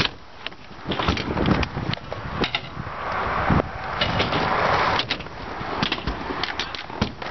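Stunt scooter wheels rolling on concrete and ramp surfaces, a rushing noise that swells and fades, with several sharp clacks as the deck and wheels strike down.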